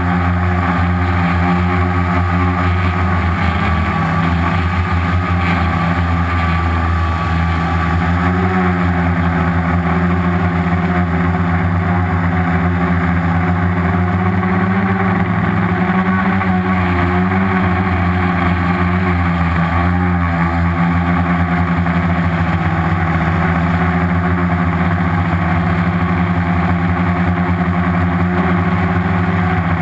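Four Turnigy 2217 1050kv brushless outrunner motors spinning 10x4.5 slow-fly propellers on a homemade quadcopter in flight, a steady multi-pitched drone whose pitches waver slightly, heard up close from the craft itself.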